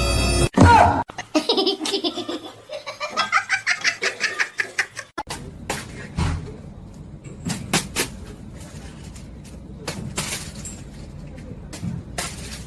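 Music cuts off, then someone laughs hard in quick repeated bursts for about four seconds, followed by background noise with scattered clicks and knocks.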